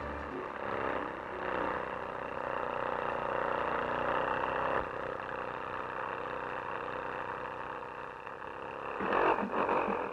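Cartoon sound effect of a small car's engine chugging steadily as it drives, growing louder in a short run of strokes near the end, then stopping.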